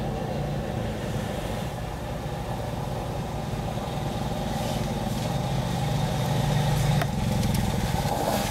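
A vehicle engine idling steadily, with one sharp click about seven seconds in.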